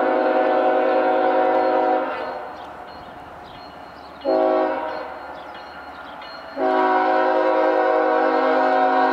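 Freight locomotive's multi-note air horn sounding the grade-crossing signal. A long blast cuts off about two seconds in, a short blast comes a little past four seconds, and a final long blast starts near the end.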